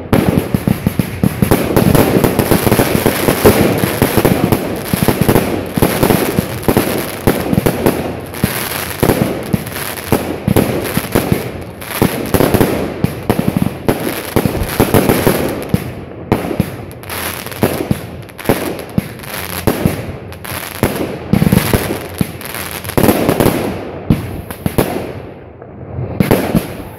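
Aerial fireworks going off in a dense, rapid run of loud bangs and pops, easing briefly a couple of seconds before the end.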